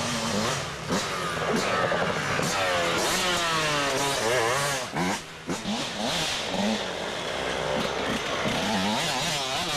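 Dirt bike engine revving up and down during an off-road hare scramble, its pitch rising and falling repeatedly as the throttle is worked.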